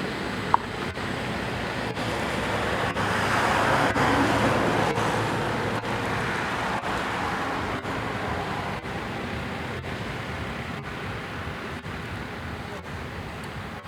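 Steady rushing background noise that swells to its loudest about four seconds in and then slowly fades, with a single sharp click about half a second in.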